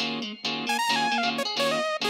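Background music: a plucked, guitar-like melody of short notes over a repeating bass pattern, starting just as a heavier electronic track drops out.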